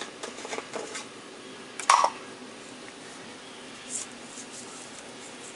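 Kitchen handling noise while seasoning ribs in a pot: a few light taps in the first second, then one short, sharp knock about two seconds in, followed by quiet room noise.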